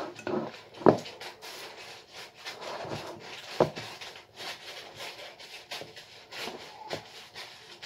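Wooden spoon stirring sticky popcorn coated in melted marshmallow in a glass bowl: irregular crunching and scraping, with two sharp knocks, the louder about a second in and another near the middle. Greaseproof baking paper rustles as it is pulled off a roll.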